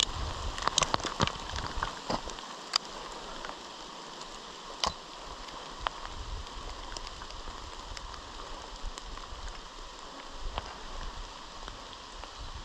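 Steady rain falling, with scattered sharp taps and clicks, most of them in the first three seconds.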